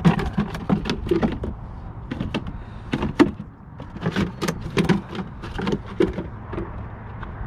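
Irregular sharp plastic knocks and clatter from a bait bucket being handled on a kayak, with live mullet inside, about a dozen hits over the few seconds.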